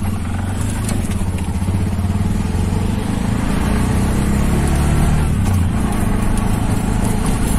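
Engine of a small motor vehicle running steadily under way, with road rumble, heard from on board: a steady low rumble with a fast even pulse.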